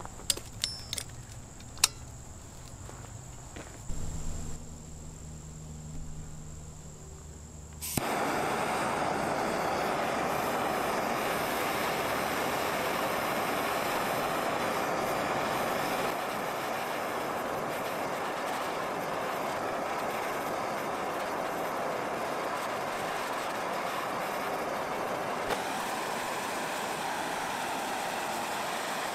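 A few sharp clicks, then about eight seconds in a handheld gas torch starts with a sudden hiss that carries on steadily. Its flame is heating a steel drill bit to a glowing orange, softening the tool steel for forging into a knife.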